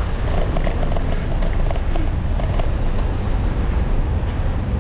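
City street ambience: a steady low rumble of road traffic and wind on the microphone, with a few faint clicks.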